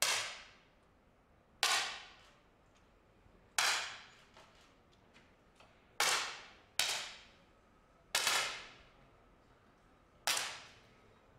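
Seven shots from 10 m competition air pistols, fired one at a time by several shooters at irregular intervals, two of them less than a second apart. Each shot is a sharp crack with a short echoing tail.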